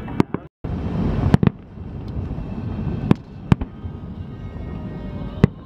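Aerial fireworks shells bursting: sharp bangs every second or two, some coming in quick pairs, over a steady low background noise.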